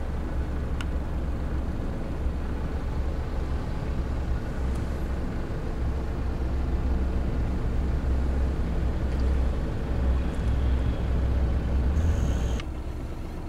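Steady low rumble of a car's engine and road noise, heard from inside the car in slow traffic. A brief high hiss comes near the end, after which the rumble drops a little.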